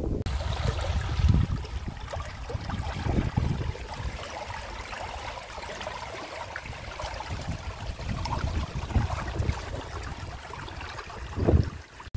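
Water running in a small, shallow stream, a steady rushing hiss, with wind buffeting the microphone in low gusts near the start and again near the end.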